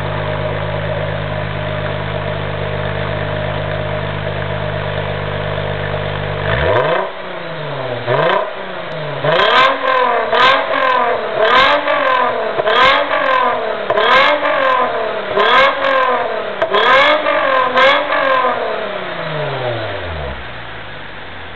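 Toyota Zero Crown's V6 exhaust through a custom silencer: steady idle, then about ten quick throttle blips one after another, each rising and falling in pitch, before it settles back to idle near the end. The revving exhaust note is high-pitched.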